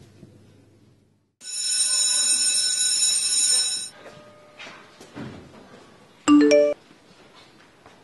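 Mobile phone sound effects: a steady high ringing tone lasting about two and a half seconds, then a short, loud message-alert chime of a few stepped notes near the end.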